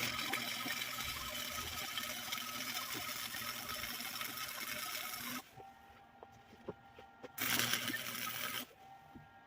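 Electric welding arc crackling and hissing in bursts: one weld of about five seconds, a pause of about two seconds, then a short weld of just over a second.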